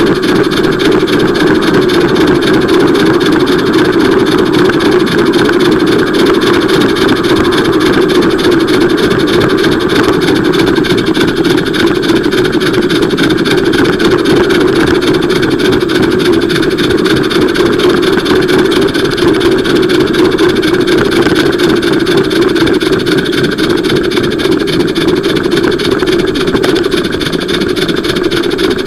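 Steady, loud running noise of a small live-steam garden-railway locomotive, heard from a camera riding on it as it travels along the track.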